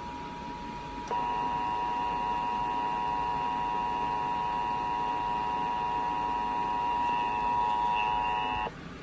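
Emergency Alert System attention signal for an Amber Alert: a steady dual-tone alarm. It starts loud about a second in, holds for about seven and a half seconds and cuts off suddenly. A fainter steady tone sounds before it starts.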